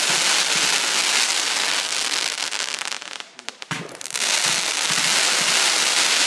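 Fireworks firing in volleys, several sparking tails going up together with a dense crackling hiss. The crackle dies down about three seconds in, and a second volley starts just before four seconds.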